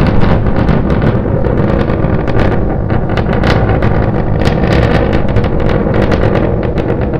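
Starship SN10's three Raptor rocket engines firing during ascent: a loud, continuous rumble with irregular crackling.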